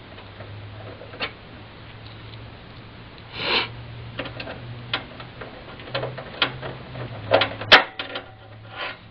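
Irregular small metal clicks, taps and a brief scrape as the retaining screw is put back into an Ethernet card's bracket in a desktop computer case; one sharp click near the end is the loudest. A low steady hum runs underneath.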